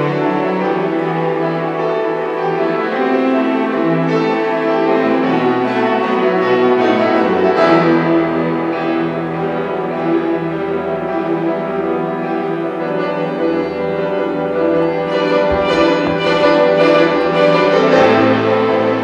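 Classical music: piano with a string orchestra, many sustained notes played together at a steady level.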